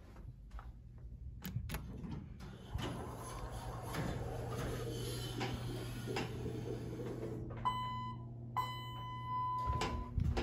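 Dover hydraulic elevator's car arriving and its doors sliding open, with a steady low hum and rattle. About two-thirds of the way in, the elevator's electronic signal beeps twice, a short beep and then a longer one.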